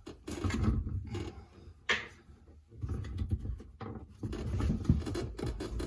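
Dishwasher parts being handled: irregular knocks, scrapes and rattles inside the tub, with one sharp click about two seconds in.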